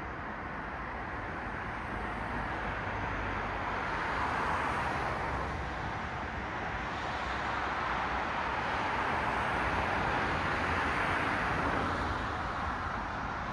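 Cars passing on a road: a steady hiss of tyre and traffic noise that swells as a car goes by about four seconds in and again more broadly near ten to twelve seconds.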